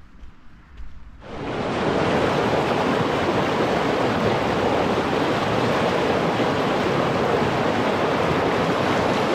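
Loud, steady rushing of flowing water from a stream, cutting in abruptly about a second in.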